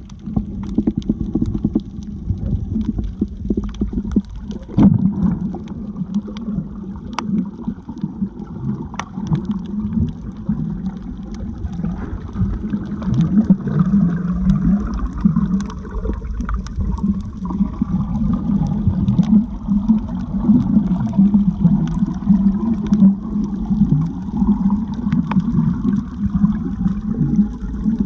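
Muffled, churning water sound of a camera in the sea while snorkeling, heavy in the low range, with scattered sharp clicks throughout.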